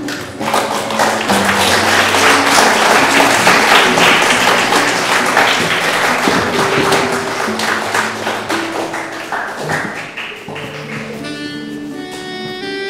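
Instrumental music with a dense clatter of sharp taps or claps over it for the first ten seconds or so. The clatter then thins out, leaving clear held instrument notes near the end.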